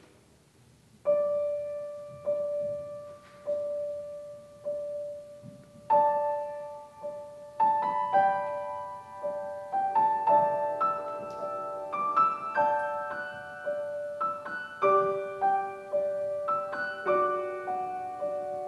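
Grand piano playing a slow solo prelude. It starts about a second in with one note struck again and again at an even, slow pace, and from about six seconds in a melody and chords gather above it.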